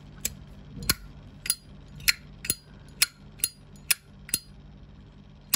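Genuine Zippo lighter being worked by hand: about ten sharp metallic clicks, roughly two a second, the last one after a short pause, as the hinged steel lid flips open and snaps shut against its cam.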